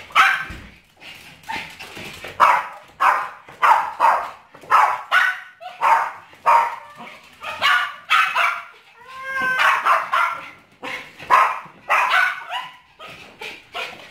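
Pomeranian spitz barking in sharp, high yaps about twice a second, excited at the owner coming home, with a brief whine about nine seconds in.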